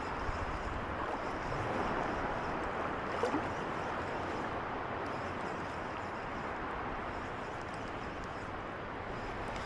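Steady wash of wind and small waves rippling over a shallow coral reef flat, with some wind noise on the microphone.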